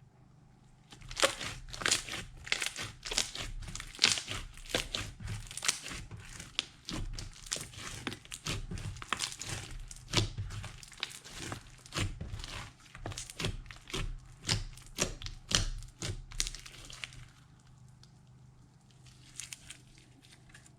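Slime being squeezed and worked by hand, giving off quick crackling pops and clicks that start about a second in and die away near the end, with a few faint clicks after.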